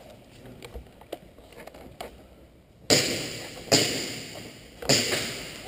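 A few faint ticks, then three loud, sudden crashes from about three seconds in, each trailing off over about a second.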